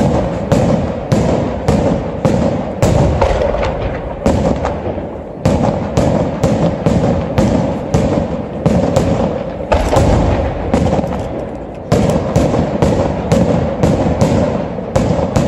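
Aerial fireworks shells bursting in quick succession: a rapid run of sharp bangs, about two to three a second, over a continuous rolling rumble. The bangs thin out briefly about five and about ten seconds in.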